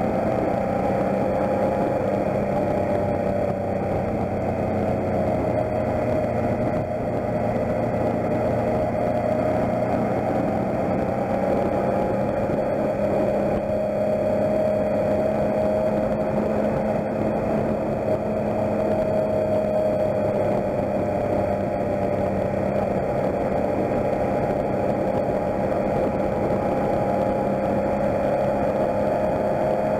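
Motorcycle engine running at a steady cruise, its pitch wavering only slightly, over a steady rush of wind and road noise on a wet road.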